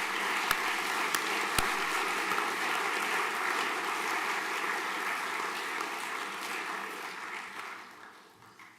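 Audience applauding steadily, the clapping dying away over the last couple of seconds.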